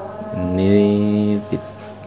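Active speaker giving out a loud, steady electrical hum for about a second as the microphone plug is worked in its jack. It cuts off abruptly and is followed by a click. It is the kind of fault the repairer puts down to a bad mic socket.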